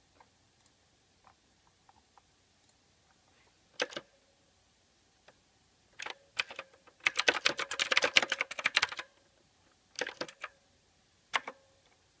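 Mechanical keyboard typing. A few faint, scattered keystrokes come first, then a pair of strokes about four seconds in. A fast flurry of typing follows from about six to nine seconds in, and a few more keystrokes come near the end.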